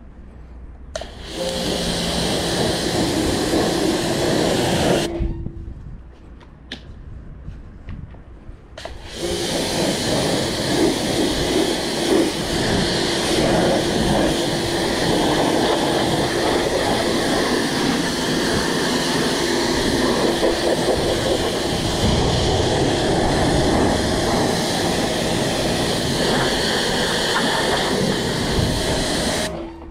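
Pressure washer wand spraying water at a zero-turn mower's tyres and deck, a steady hiss. The trigger is let go about 5 s in and squeezed again about 9 s in, and the spray stops just before the end.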